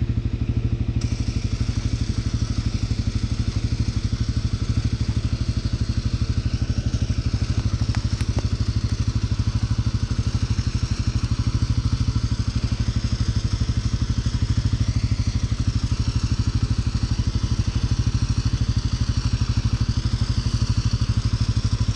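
ATV engine idling steadily with an even, rapid pulse, the four-wheeler stuck in mud while its winch line is run out.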